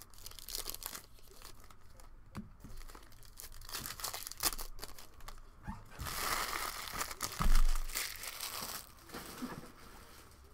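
Trading-card pack wrappers being torn open and crinkled, with cards rustling as they are handled; the rustling thickens for a few seconds past the middle. A loud low thump comes about seven and a half seconds in.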